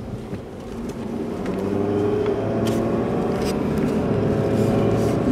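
Truck driving along a road, heard from inside the cab: steady engine and tyre noise, with sustained music tones swelling in from about a second and a half in.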